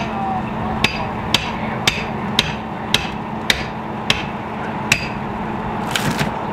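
Forcible entry on a door: a pry bar set at the lock is struck with metal on metal, about two sharp strikes a second, eight in all, stopping about five seconds in. A short rougher noise follows near the end, over a steady low hum.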